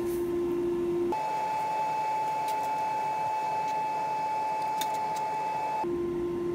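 Steady machine hum in a metalworking shop: one held tone over a low noise. About a second in it jumps to a higher, thinner pitch and stays there for several seconds, with a couple of faint ticks, then drops back to the original tone near the end.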